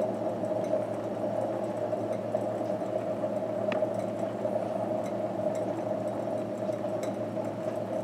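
Cory vacuum (siphon) coffee maker bubbling steadily on the burner as it brews. Water boiling in the lower glass chamber keeps vapour pushing up through the coffee in the upper chamber, with a low steady hum beneath.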